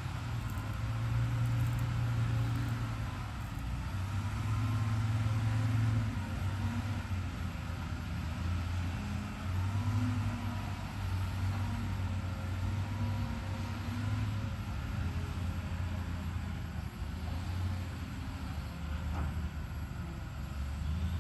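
Hyundai HX210HD hydraulic excavator's diesel engine running steadily as the machine works the soil. The engine note shifts up and down every few seconds, with a faint wavering whine above it.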